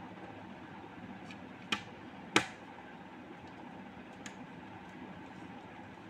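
Two sharp clicks, about a second and three-quarters in and half a second apart, the second louder, over a steady low background hiss; a faint tick follows near the end.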